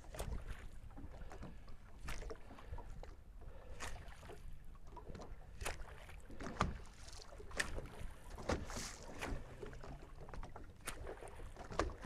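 Faint water sounds of small waves on open, choppy water, with a sharp splash or slap every second or two at irregular spacing.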